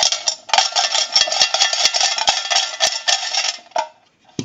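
Coins rattling and jingling in a payphone's metal coin box as the box is handled, a dense metallic clatter with many small clinks that stops about a second before the end. A dull knock follows near the end.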